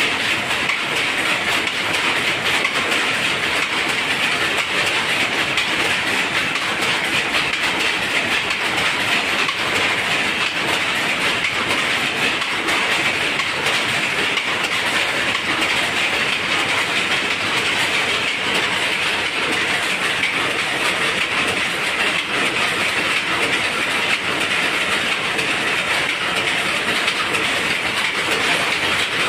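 Jacquard power looms running: a loud, steady, rapid mechanical clatter that never lets up.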